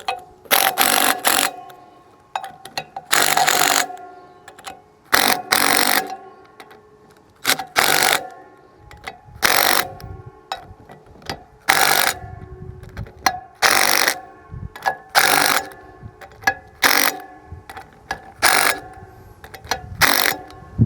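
Hand ratchet wrench clicking in repeated short strokes, about one every second or two, with faint metallic ringing between, as bolts are tightened down evenly to compress the springs of a dozer's spring-applied parking brake unit.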